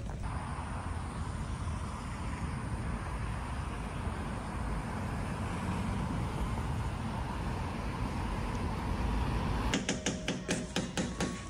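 Wind buffeting the microphone outdoors: a heavy, steady rumble with a faint steady tone above it. Near the end it cuts off and a quick run of sharp clicks follows, about four a second.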